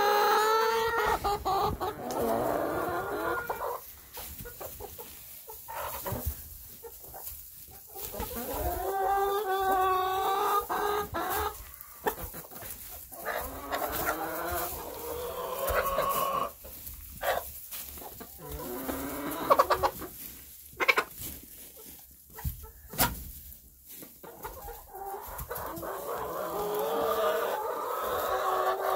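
Chickens clucking and calling, with several long drawn-out calls a few seconds apart. A few sharp knocks around the middle.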